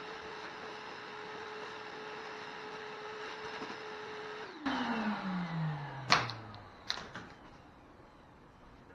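A small electric vacuum motor runs with a steady whine. About halfway through it is switched off and winds down, its pitch falling over about two seconds. A few sharp knocks follow as the hose or tool is handled.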